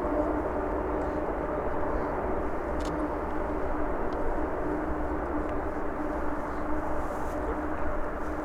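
The four jet engines of a Boeing 747-400 freighter running steadily: a continuous rushing noise with a steady low hum.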